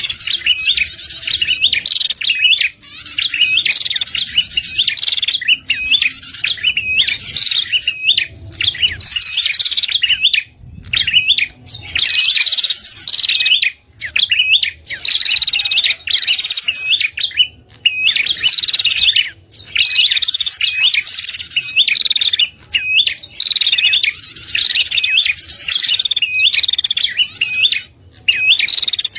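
Prenjak (prinia) calling: fast, repeated sharp chirps broken by short trilled phrases. This is a lure recording used to draw in prenjak.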